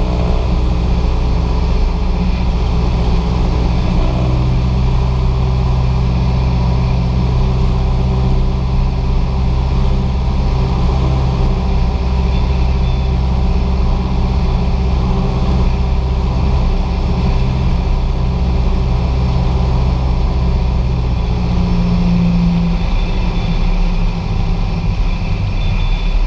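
Cessna 172's piston engine and propeller running steadily at low power, heard from inside the cabin during the landing rollout. Near the end the engine note drops as the revs fall toward idle.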